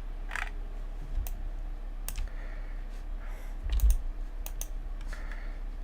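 Scattered clicks of a computer keyboard and mouse, a few short taps spread out with gaps between them, over a low steady hum.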